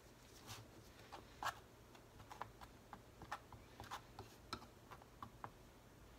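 Faint, irregular light clicks and taps of a palette knife picking up acrylic paint from a palette and working it onto a canvas, with one louder tap about a second and a half in.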